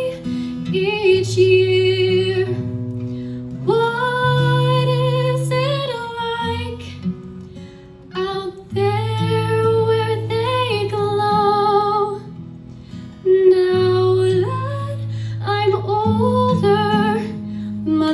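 A woman singing a song solo over instrumental accompaniment, in phrases with held notes and short breaks between them.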